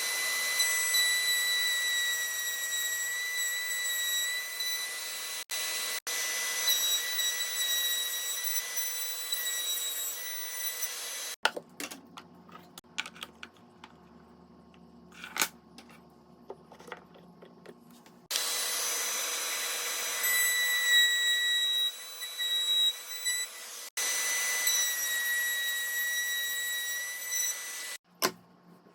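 A handheld electric power tool running with a steady high-pitched whine for about eleven seconds, then stopping while wood and tool are handled with a few clicks and knocks, then running again for most of the rest.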